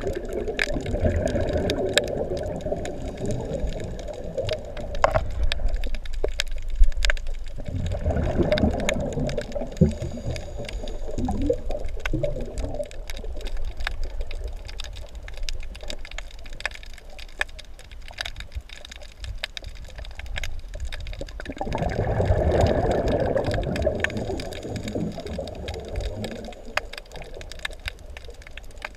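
Scuba diver's exhaled breath bubbling out of the regulator, heard underwater: three long bubbling exhalations spaced several seconds apart, with faint clicking and crackling between them.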